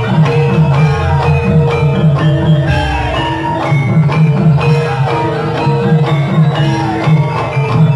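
Gamelan ensemble playing jaranan dance music: struck metal mallet instruments ringing out a busy melody over a steady drum rhythm and a held gong tone.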